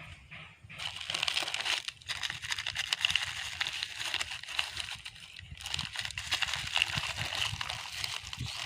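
Continuous crackly rustling and crinkling from someone walking while carrying a handful of collected plastic litter, with brief dips about two seconds in and again past the middle.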